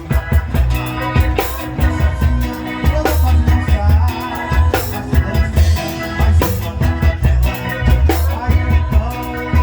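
A live band playing with a steady beat: drum kit, bass and other instruments, with some singing.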